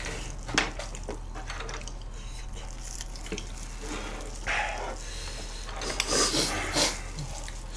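Wet eating and handling sounds: chewing, and plastic-gloved hands picking through saucy stir-fried food, with a few light clicks and rustles.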